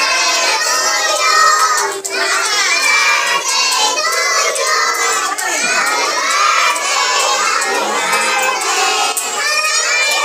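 A large group of young children singing together at the top of their voices, close to shouting, with some hand-clapping.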